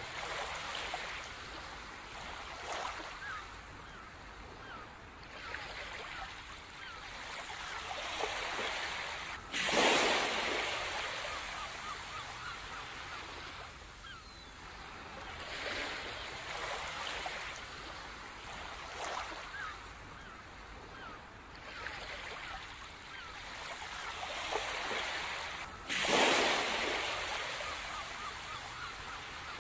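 Sea waves breaking on a beach in a slow rolling cycle. Two big breakers come in suddenly, about ten seconds in and again near the end, each washing out slowly, with smaller swells between them.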